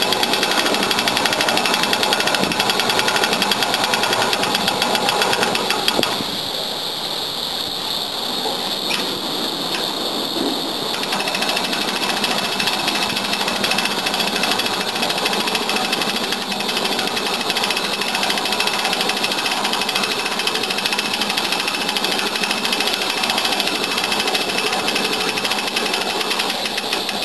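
Electric winch on a boat-mounted davit running steadily with a fast mechanical whirr as it hoists a loaded rescue basket out of the water. The sound drops in level and thins out about six seconds in.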